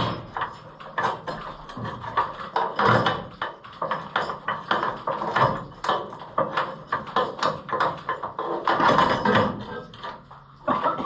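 Irregular run of knocks, clanks and rattles from hands working on the combine's gathering chain and head.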